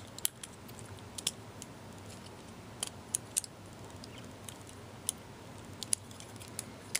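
Scattered small plastic clicks and taps from a Transformers Deluxe Class Air Raid action figure being handled, its parts clicking as they are moved and adjusted. The clicks come about ten times, unevenly spaced, over a faint steady hiss.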